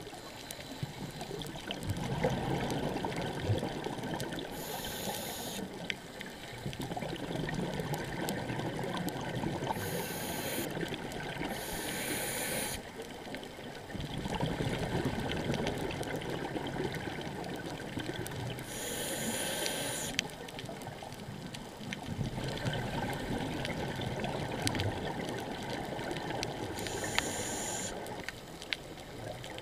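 Scuba diver breathing through a regulator, heard underwater: a short high hiss of each inhalation about every seven seconds, then a long bubbling rush of exhaled air.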